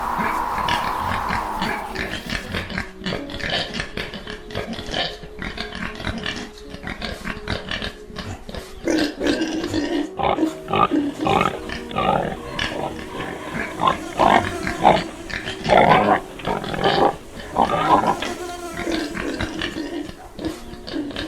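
A dog whining in many short cries, coming thicker and louder from about nine seconds in.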